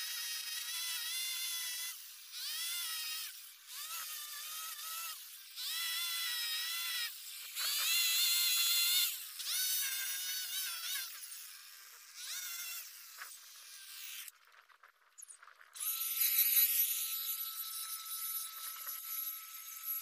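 String trimmer whining in bursts as it cuts grass along the edges of a nature strip, its pitch dipping under load and picking up again between passes. After a short lull about fourteen seconds in, a steadier high whine with a hiss takes over.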